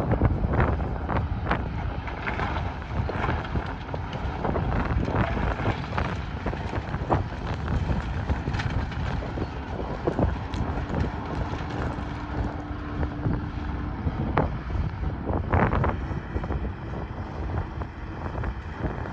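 Hyundai crawler excavator running with a heavy diesel rumble as it digs and loads, with scattered knocks and clatter of gravel and the steel bucket. Wind buffets the microphone throughout, and a steady whine is heard for a few seconds about halfway through.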